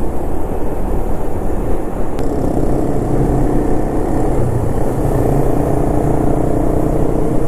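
Honda Winner 150 motorcycle's single-cylinder engine running steadily while the bike is ridden, with a dense road and wind rumble underneath.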